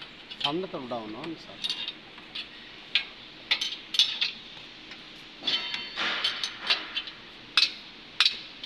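Irregular metallic clinks and clanks from a hand chain hoist and its hanging chain, with the suspended V8 engine over the engine bay during installation. A brief voice is heard about a second in.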